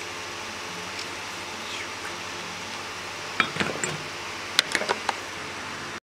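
Metal hand tools (pliers and circlip pliers) clinking and clattering as they are set down among brake caliper parts in a plastic parts tub, in two short clusters past the middle and near the end, over a steady background hiss.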